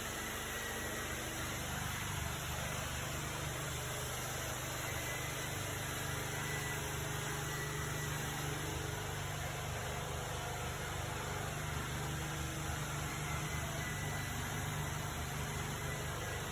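A steady low machine hum under an even hiss, growing a little fuller about a second and a half in.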